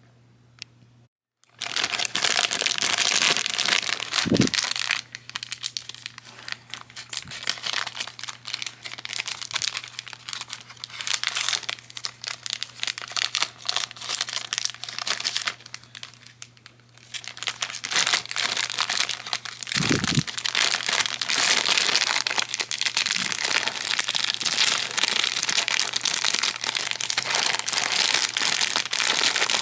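Plastic bag crinkling and rustling as model kit parts are handled and taken out of it, with a quieter stretch in the middle.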